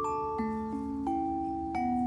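Background music: a gentle melody of struck, ringing mallet-percussion notes, about two or three notes a second.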